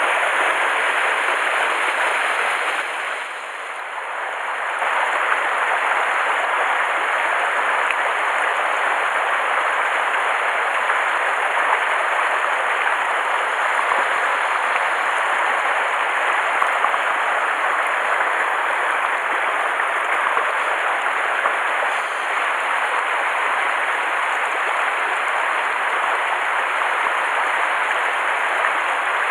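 Mountain stream rushing over rocks and small cascades: a steady, even rush of water that dips briefly about three seconds in.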